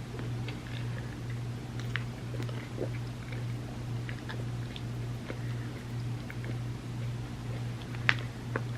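Close-miked eating of a chocolate trifle: soft chewing and mouth sounds with scattered small clicks, and a sharper click near the end. A steady low hum runs underneath.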